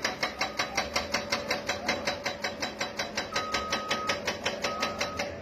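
Hydraulic breaker hammering at a steady rate of about seven blows a second over a steady machine hum. A reversing alarm beeps twice in the second half.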